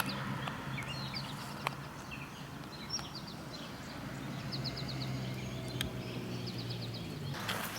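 Wild birds singing, repeated series of short, high chirps, over a steady low hum, with a brief rustle near the end.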